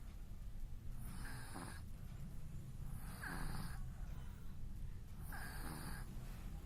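Sleeping baby snoring: three noisy, throaty breaths about two seconds apart.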